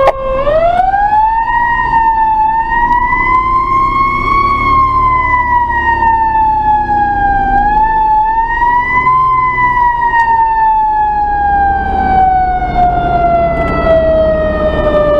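Fire engine siren wailing. The pitch climbs over the first couple of seconds, dips and climbs again, then falls slowly and steadily through the second half. The truck's engine runs underneath.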